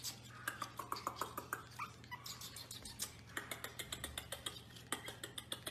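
Pomeranian puppies whimpering faintly in short spells over a steady run of quick small clicks and taps.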